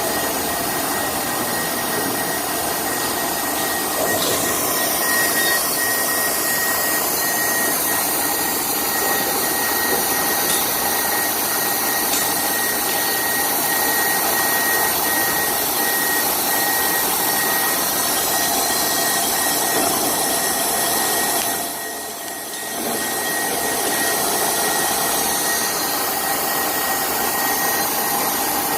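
Milling machine cutting a 25 mm keyway: a steady mechanical whine with a thin high tone running through it. The high tones shift in pitch about four seconds in and again near eighteen seconds, and the level dips briefly about three-quarters of the way through.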